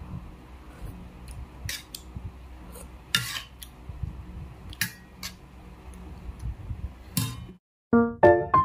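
Metal spoon clicking and scraping against a plate of instant noodles in scattered sharp taps while eating. Near the end the sound cuts out and piano music begins.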